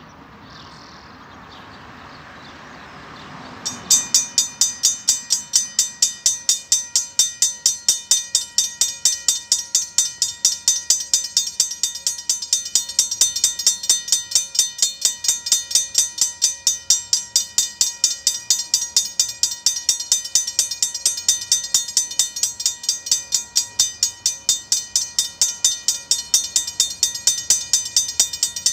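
Mechanical level-crossing bell on the crossing signal post starting up about four seconds in and ringing steadily, about three strikes a second: the crossing has activated for an approaching train. Before it starts, a faint rising rushing noise.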